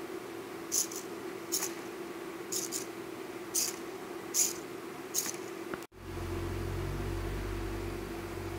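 Small hobby servo motors on a hexapod robot leg turning back and forth, six short high whirs about a second apart over a steady hum. Near the middle the sound cuts out abruptly, then returns with a steady low rumble under the hum.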